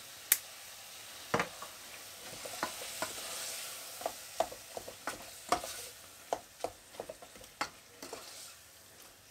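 Lamb mince frying gently in a pan with a soft sizzle, while a wooden spoon stirs and scrapes it against the pan. There are short sharp knocks of the spoon on the pan throughout, the loudest just after the start.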